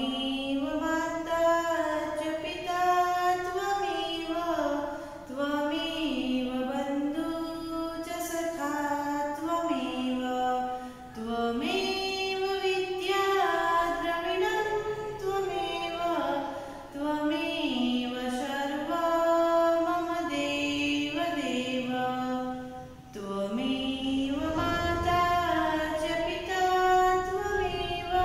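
A woman singing a prayer unaccompanied: a slow melody of held notes that glide between pitches, broken by a couple of short breaths.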